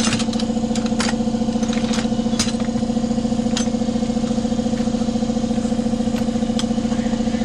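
A motor running steadily at one speed, with a fast even pulse and a few sharp clicks over it; it cuts off suddenly near the end.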